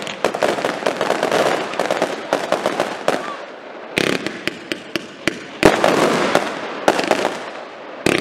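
Fireworks display: a dense crackle of many small rapid pops from bursting shells, thinning after about three seconds into a run of separate sharp bangs, with a loud report about halfway through and another near the end.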